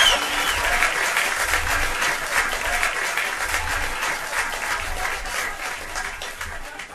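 Audience applauding, with a few faint whoops early on, dying away gradually toward the end.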